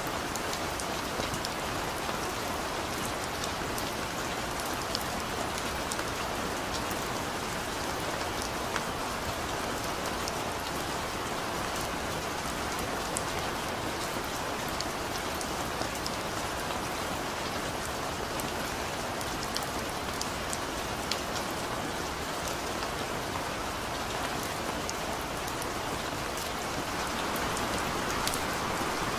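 Steady rain falling: a dense, even hiss with many sharp drop ticks scattered through it, growing slightly louder near the end.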